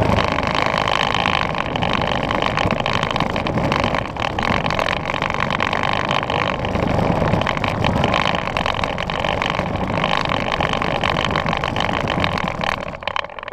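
Electric ride-on toy truck driving over asphalt: a steady whine from its motors and gearbox mixed with the rumble of its plastic wheels. It drops off near the end.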